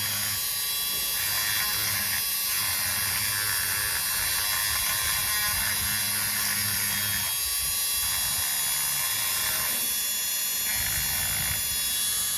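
A small handheld electric tool buzzing steadily, its tone shifting every few seconds as it works the material.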